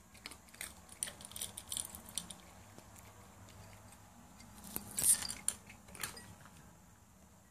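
Two cats eating dry kibble from a ceramic and a stainless-steel bowl: scattered small crunches and clicks of food against the bowls, with a louder sharp clatter about five seconds in and another near six seconds.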